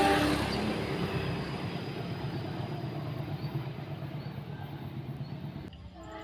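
A diesel locomotive's horn chord cuts off about half a second in, leaving a low engine drone and the rumble of the passing train that fade steadily. Near the end another train horn starts, a chord of several tones held.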